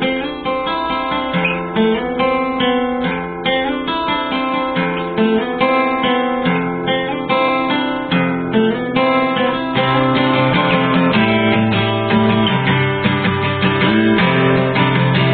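Background music played on acoustic guitar, plucked notes with strummed chords, fuller and a little louder in the second half.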